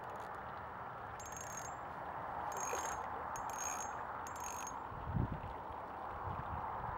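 Fishing reel ratcheting in four short bursts of metallic clicking with a high ring as a hooked carp is played, over a steady hiss of water and wind. A low bump about five seconds in, with a smaller one after it.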